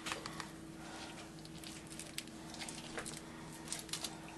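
Faint handling noises: scattered light clicks and rustles of a plastic meat wrapper being handled on a cutting board, over a low steady hum.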